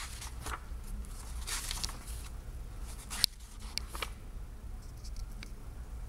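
Paper pages of a thick book being turned by hand, rustling and brushing for about two seconds. A single sharp tap comes a little past three seconds in, with a few lighter page ticks just after.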